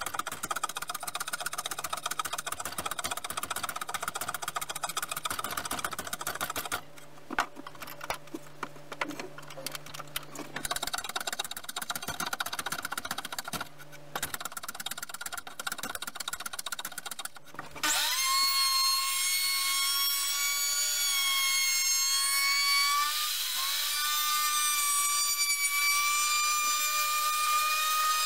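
Hand plane shaving the curved edge of a pine bowl blank in fast scraping strokes, with two short pauses. About eighteen seconds in, an electric plunge router starts up with a loud, steady high whine, dipping briefly in pitch partway through.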